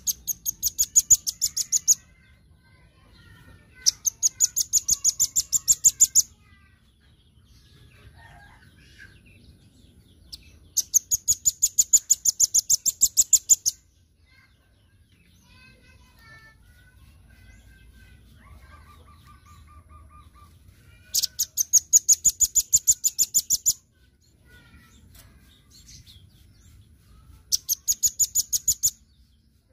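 Velvet-fronted nuthatch calling in five loud bursts, each a rapid run of about ten sharp, high repeated notes a second lasting two to three seconds, with fainter chirps in the gaps between.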